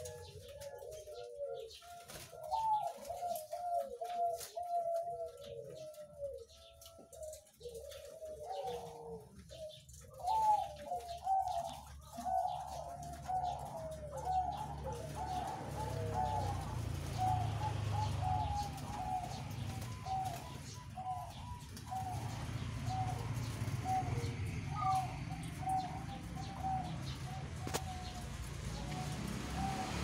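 Caged zebra doves (perkutut) cooing: several birds overlap at first in runs of short rising-and-falling coo notes, then from about halfway a steadier, sparser series of coos goes on. A low rumble sits underneath in the second half.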